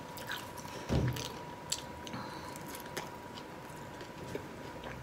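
Faint chewing and mouth sounds of someone eating shrimp, with a few soft clicks and a low thump about a second in.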